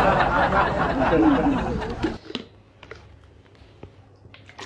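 Crowd laughter sound effect, cut off abruptly about two seconds in. After it comes a quiet room with a few light taps and clicks.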